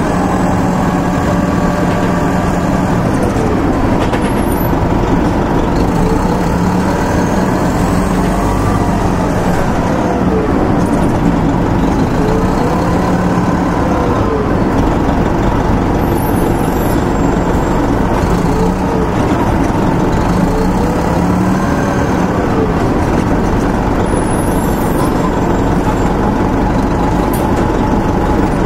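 Detroit Diesel Series 50 inline-four diesel and Allison automatic transmission of a 1996 Nova Bus RTS-06 city bus, heard on board while the bus is under way. The engine runs steadily, and a whine rises and falls in pitch several times as the bus pulls away and slows.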